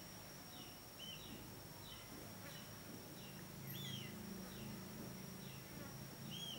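Common moorhen chicks peeping: short, high, falling peeps repeated about every half second, with a few louder arched calls mixed in. A steady faint high whine runs underneath.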